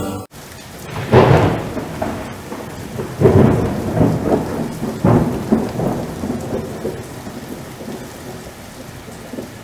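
Thunderstorm sound: steady rain with three claps of thunder about two seconds apart, the first about a second in, then the rain and rumble fading down.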